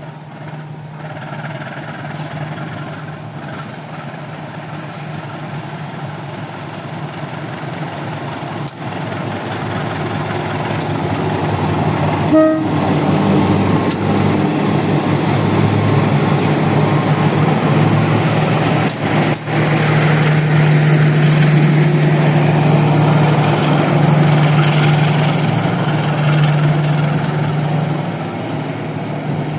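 A passenger train hauled by a CC 203 diesel-electric locomotive runs by. The locomotive's low engine drone and the train's running noise grow louder about twelve seconds in, hold steady, and ease slightly near the end.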